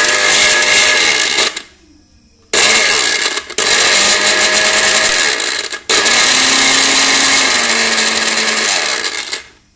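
Electric blender motor running with an empty jar. It runs for about a second and a half, stops for about a second, then runs again for about seven seconds with two momentary drops before stopping near the end.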